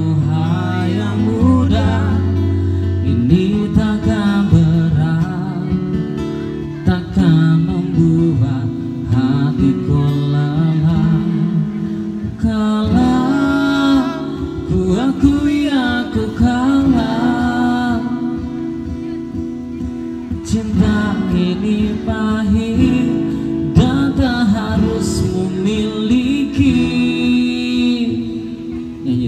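Live acoustic band music: guitar chords under a lead melody line that bends and wavers in pitch.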